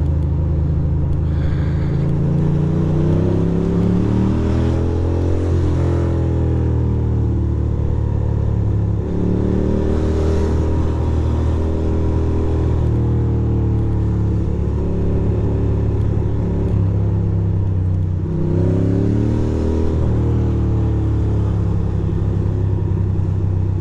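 2006 Ducati Monster 620's air-cooled L-twin engine under way, its note rising as the throttle opens and dropping back at each shift, several times over, with road and wind noise beneath.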